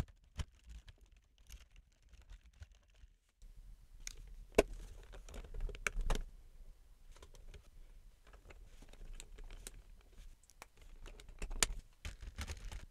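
LEGO bricks being handled and pressed together: scattered sharp plastic clicks and small rattles, the loudest about four and a half seconds in and again near the end.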